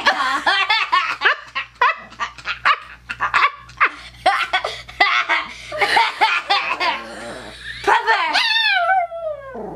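A small dog vocalising in a rapid string of short yips and whines, the warbling 'talking' sounds of a vocal dog, with a child laughing over it. Near the end comes one long call that slides down in pitch.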